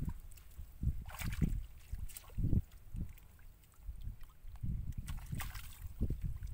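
Hands splashing and sloshing in a shallow muddy puddle while feeling for fish, a few short splashes standing out, with wind buffeting the microphone in low gusts.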